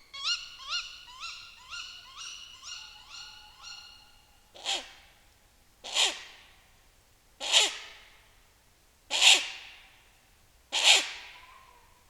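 Female tawny owl giving its harsh, sneezy 'ke-wick' contact call again and again, about every second and a half from about four and a half seconds in. Before that comes a fading run of short, pitched, clipped notes, about two a second.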